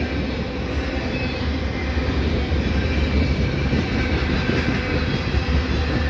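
Loaded three-bay covered hopper cars of a heavy potash unit train rolling past at speed: a steady rumble of steel wheels on the rails.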